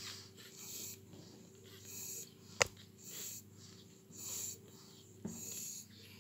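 Pugs breathing noisily, one wheezy, hissing breath about every second. A single sharp click comes near the middle, over a faint steady low hum.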